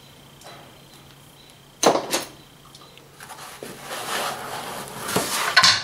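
Handling noise from unpacking: a sharp rustle or knock about two seconds in, then a run of rubbing and rustling as parts are moved in the foam packing, ending in a louder scrape.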